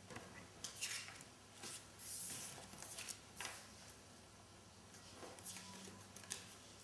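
Playing cards being laid and slid onto a wooden table: a few faint soft taps and a brief swish about two seconds in.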